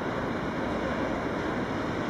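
Diesel shunting locomotive hauling a train of tank wagons past, heard as a steady low rumbling noise mixed with wind on the microphone.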